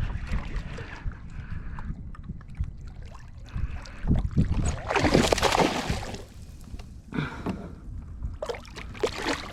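Water splashing beside a kayak: one loud splash about five seconds in, then shorter splashes near the end, over a low rumble.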